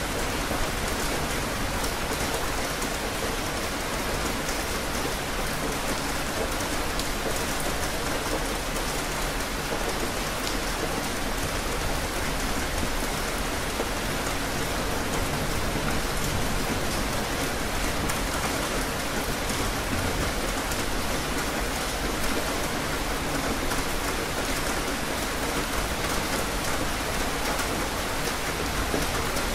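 Steady rain falling, an even hiss of many drops at a constant level.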